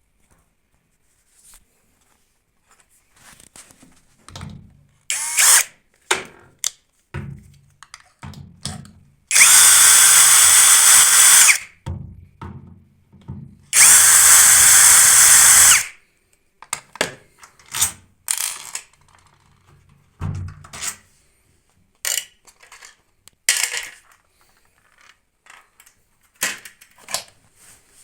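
Power drill/driver running in two stretches of about two seconds each, near the middle, with scattered knocks and clicks of tool and panel handling before, between and after.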